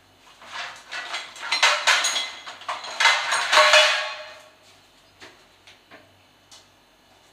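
Metal pots and utensils clattering and clinking for about four seconds, with a brief metallic ring near the end of the clatter, then a few separate knocks.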